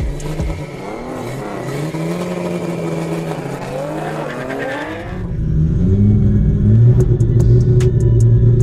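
Toyota Supra race car's engine idling unevenly and being blipped, its pitch rising and falling. About five seconds in, the sound switches to a louder, steady engine drone heard inside the cabin, with sharp clicks.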